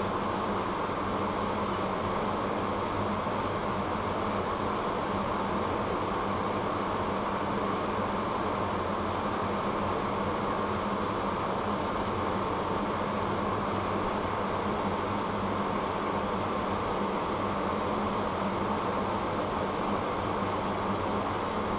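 Steady, unchanging machine hum with a whooshing noise over it, like a running fan.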